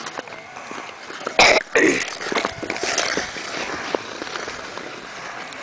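Ice skate blades scraping and gliding on outdoor natural ice, with two loud short bursts about a second and a half in, then a stretch of hissing scrape.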